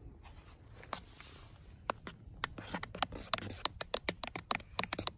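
A titanium spork stirs coffee grounds steeping in a Jetboil cooking pot. The spoon knocks and scrapes against the pot wall in a quick, irregular run of clicks that starts about two seconds in.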